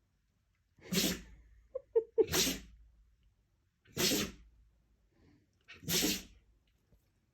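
Husky dog sneezing four times, the sneezes coming about one and a half to two seconds apart, with a few short squeaky sounds just before the second sneeze.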